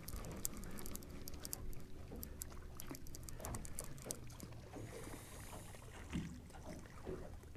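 Faint small clicks and knocks of tackle and fish being handled in a fishing boat, over a low steady rumble of water against the hull.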